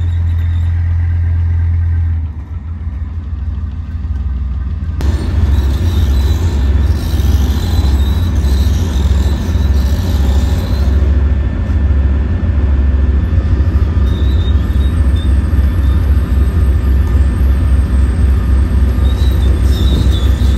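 Leopard 1 tank's 10-cylinder, 37.4-litre, 830 hp engine running, first while the tank drives past, then after a sudden cut about five seconds in, running stationary in a shed with an even low pulse.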